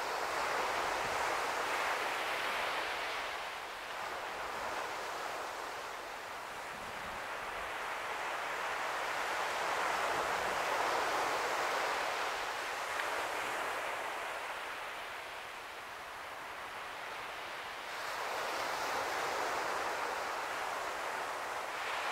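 Surf breaking on a shore: a rushing wash that swells and dies away about every nine seconds.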